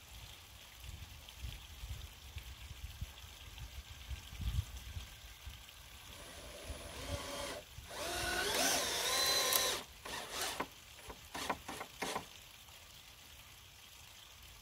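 Cordless drill running into timber boards: it starts about six seconds in, runs steadily for a couple of seconds with a rising whine, then gives several short bursts as the screw is driven home. Low handling knocks and rustling come before it.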